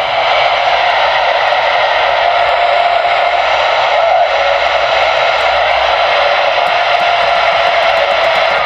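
Superstar 3900 export 11-meter CB radio's speaker putting out steady receiver static with the squelch open, a loud even hiss with a faint steady tone underneath.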